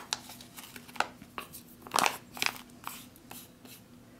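A microwavable food pouch crinkling and crackling in irregular sharp bursts as it is squeezed and handled to empty out the pasta.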